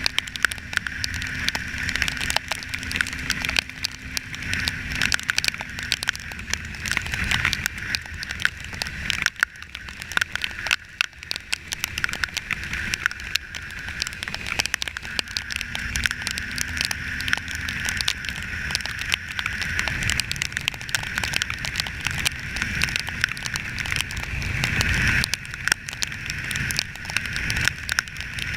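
Rain and wind crackling against the microphone of a camera riding on a motorcycle in the rain: a dense patter of fine clicks over a steady hiss, with a low rumble underneath.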